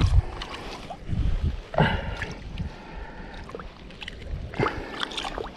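A few knocks and handling noises with faint water sounds while two perch caught together on one rig are dealt with.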